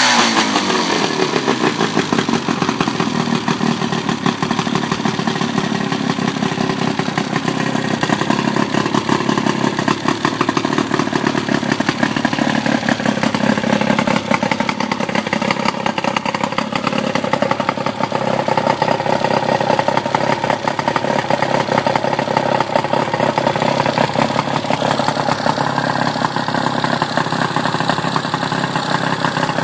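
Johnson 55 hp Sea-Horse two-stroke outboard motor running with its cowling off. The revs drop at the very start, then it idles steadily.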